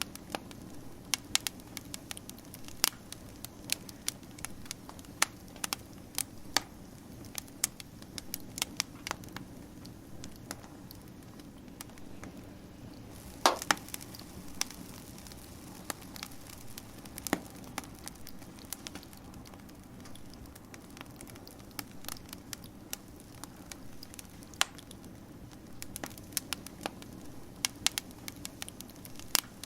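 Wood fire burning, with irregular sharp crackles and pops over a steady low rush of flame; one pop about halfway through is louder than the rest.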